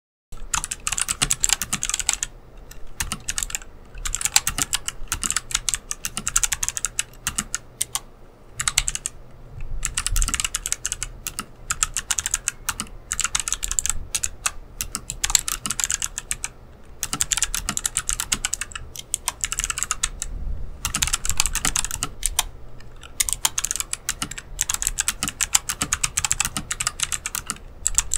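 Rakk Lam-Ang Pro mechanical keyboard with Kailh Box White clicky switches being typed on fast, a dense clatter of key clicks in runs of a few seconds with brief pauses between.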